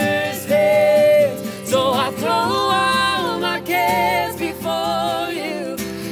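Acoustic guitar accompanying several voices singing a worship song, with long held notes.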